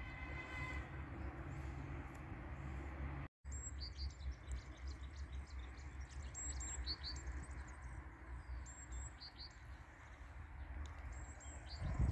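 Small birds chirping and twittering, many short high calls from about three seconds in, over a steady low outdoor rumble.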